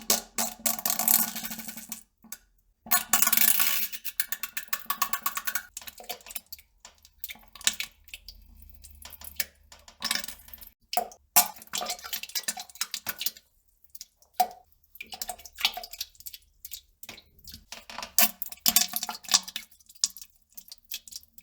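Wet, spluttering fart and pooping sounds in irregular bursts, with short pauses between them.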